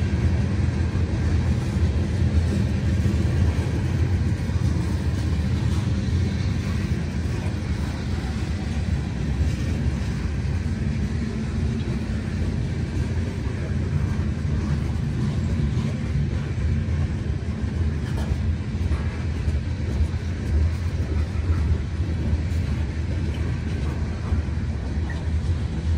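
Freight train rolling past, a steady low rumble of wheels on the rails.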